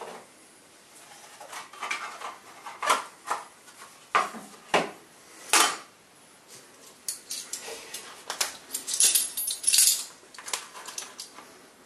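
Small clinks, knocks and scrapes of a metal measuring spoon against a glass bowl and kitchen scale, with a plastic bag crinkling from about seven seconds in, as brewing minerals are measured out.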